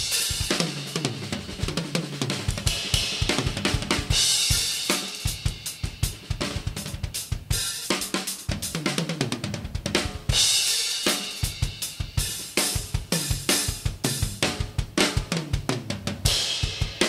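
Kyre Iris Series ash-shell drum kit (22x17" bass drum, 14x6.5" snare, 10" and 12" rack toms, 16" floor tom) played as a full-kit groove with hi-hat, bass drum and snare. Tom fills run down in pitch, and crash cymbals are struck at the start, about three seconds in, about ten seconds in and near the end.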